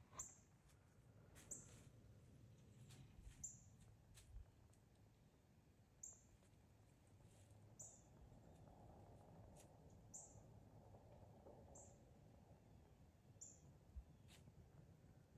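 Near silence broken by faint, short, high chip notes repeated about every two seconds, a small bird calling.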